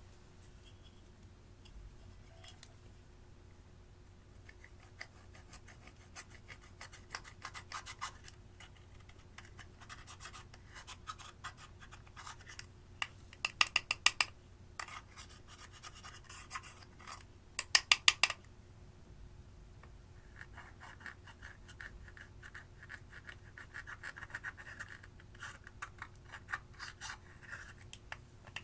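Slime being worked with eyeshadow mixed in, making bursts of fast crackling clicks and scratchy scraping. The loudest bursts come about halfway through and again a few seconds later.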